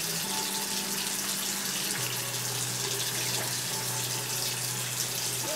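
Bathroom tap running steadily into the sink as the face is wetted for washing with a clarifying soap.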